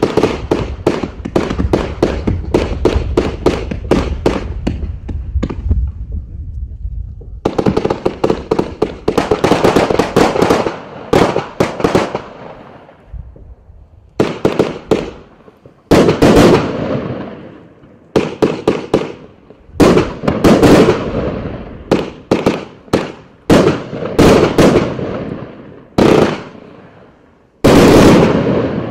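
Riakeo Night Stalker compound firework cake (199 shots, 20, 25 and 30 mm) firing. It opens with a fast run of shots, several a second, then settles into heavier volleys of bangs in clusters a few seconds apart, each trailing off.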